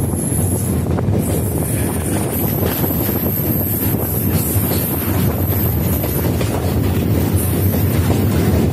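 Running noise of an electric local train heard from the open doorway of a moving coach: a steady, loud rumble of wheels on track, with wind on the microphone.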